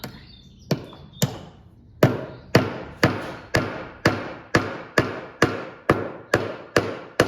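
Claw hammer tapping a copper pin into a wooden nest box: two separate taps, then a steady run of about a dozen even strikes, roughly two a second.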